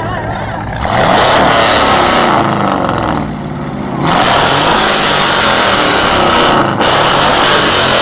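Chevrolet Camaro V8 accelerating hard, its engine note rising under full throttle. It eases off around two seconds in, then pulls hard again, with a short drop near the end like a gear change.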